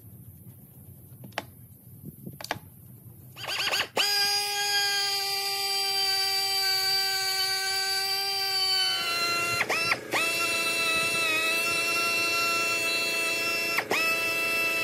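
A few faint clicks, then about four seconds in an electric power tool motor starts and runs at a steady pitch. It briefly lets off twice and spins straight back up each time.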